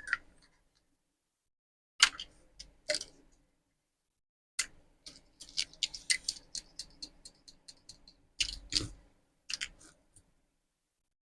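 Small plastic toy pieces and packaging being handled, making irregular clicks and crackles that come in clusters, densest in the middle and loudest about three-quarters of the way through.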